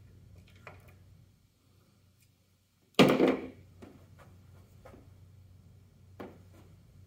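A sudden loud knock about three seconds in, dying away within half a second, followed by a few faint taps.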